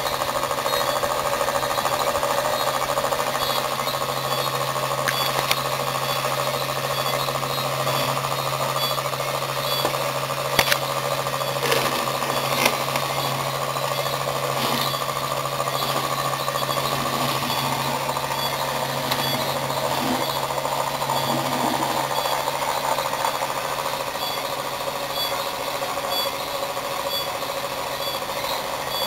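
Homemade iron-core axial flux pulse motor running steadily, with a rapid pulsing buzz over a steady low hum. A few sharp clicks come between about ten and thirteen seconds in.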